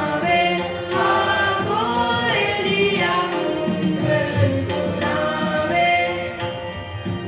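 A mixed group of women and men singing a song together in chorus through microphones, with instruments accompanying.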